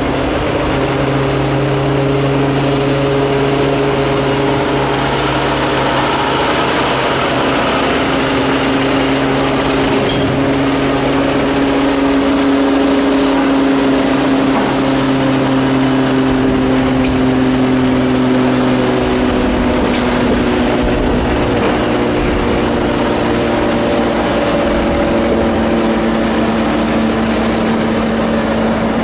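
Diesel engine of a Brandt road-rail truck running steadily as it rolls past on the rails with tie gondolas, over continuous wheel-on-rail rumble. The engine hum shifts in pitch about a quarter of the way in and again about two-thirds through.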